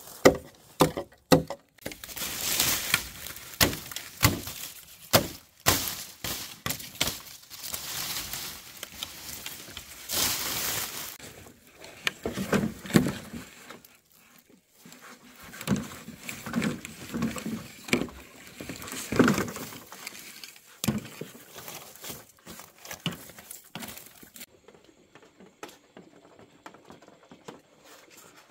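Irregular knocking, scraping and rustling from hands working with material, with sharp knocks in the first second or two. It dies away to near quiet a few seconds before the end.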